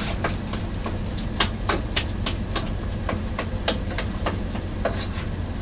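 A spoon knocking and scraping against a cooking pot at irregular intervals, about two strokes a second, as ground beef is broken up into crumbles in it. A steady low hum runs underneath.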